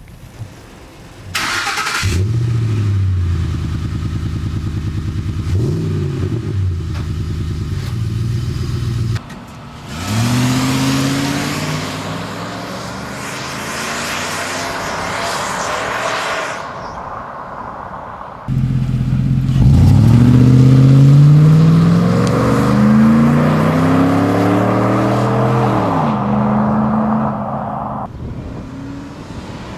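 2005 Ford F-150 fitted with a new Magnaflow 3-inch cat-back exhaust, starting up about two seconds in and idling with a short rev. The truck is then driven, its exhaust note rising in pitch as it accelerates, with a harder acceleration about two-thirds of the way through.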